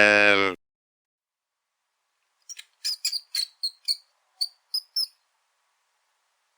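A deep animal call ends about half a second in. After a pause comes a quick series of about ten short, high squeaks or chirps from a small animal, spread over two and a half seconds.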